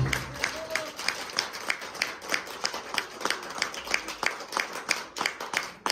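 A small audience clapping, with distinct sharp claps at a brisk, fairly even pace. The song's music cuts off just as the clapping begins.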